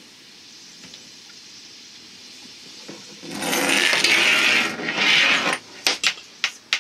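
Braided line running fast through a sailboat block, a rushing, rubbing noise for about two seconds as the twist-free coil pulls through without snagging. Then a few sharp clicks and knocks at the block and its shackle as the end of the line comes free.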